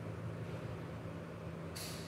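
Steady low background hum, with a short sharp hiss near the end.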